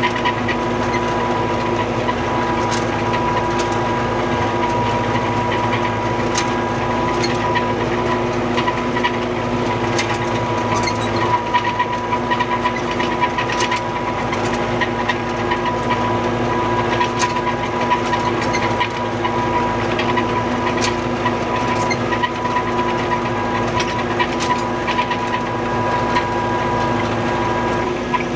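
Old farm tractor's engine running steadily at a constant speed, with occasional sharp clicks and rattles over it.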